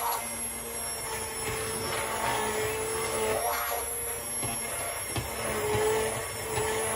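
Immersion (stick) blender running steadily in a saucepan of hot butternut squash soup, puréeing it smooth: a constant motor whine over the churning of the soup.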